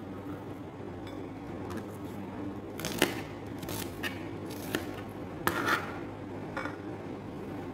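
Kitchen knife slicing a red onion on a plastic cutting board: five or six short, sharp knocks of the blade through the onion onto the board, unevenly spaced and strongest about three seconds in. A steady low hum sits underneath.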